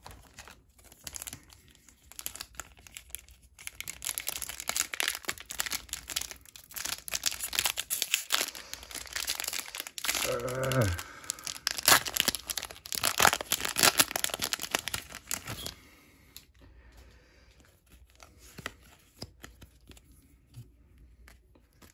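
Plastic wrapper of a Pokémon card booster pack being torn open and crinkled by hand, a long dense run of crackling and tearing that stops suddenly about two-thirds of the way through. Fainter clicks of cards being handled follow.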